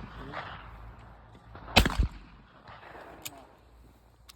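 A shotgun shot about two seconds in, with a second report a quarter-second after it.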